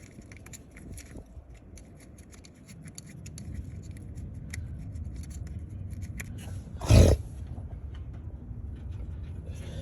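Small metallic clicks and scrapes of hand tools and bolts during engine work. A low rumble builds under them, and there is one loud knock about seven seconds in.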